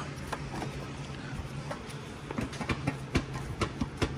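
Irregular light clicks and knocks of hand tools and plastic trim being worked loose on a car's front end, over a steady low hum.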